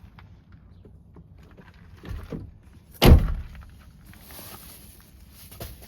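A truck door slamming shut about three seconds in, a single heavy thud, with softer knocks just before it.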